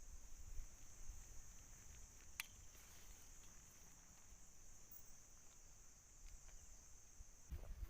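Faint steady chirring of an insect chorus, crickets. There is one sharp click about two and a half seconds in, and a low rumble near the end.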